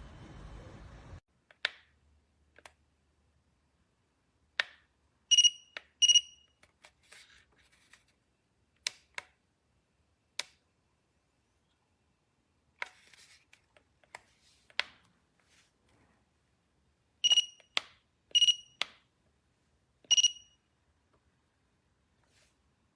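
Five short, high electronic beeps at one pitch, two about five to six seconds in and three more between about seventeen and twenty seconds in, among scattered soft clicks and knocks. A steady noise cuts off about a second in.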